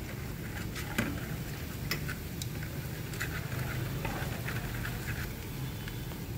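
Shallots, garlic and green-onion roots frying gently in caramel and oil in a metal wok, with scattered ticks of chopsticks stirring against the pan over a steady low hum.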